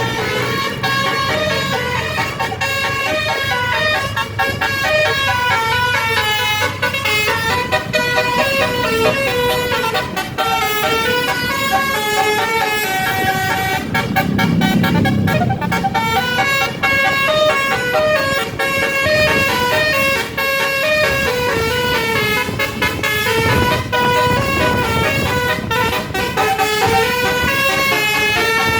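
A bus's Basuri-type telolet horn, a multi-tone musical air horn, playing a long, fast melody of stepped notes. A low vehicle rumble swells about halfway through.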